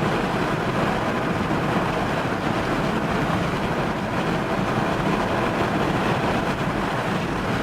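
A car travelling at highway speed, about 50 to 60 mph: steady tyre and wind noise.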